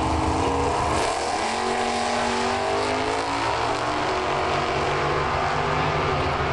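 Two Super Sedan drag-racing cars launching off the start line and accelerating away down the strip. Their engines climb steadily in pitch after about a second, with a break partway through.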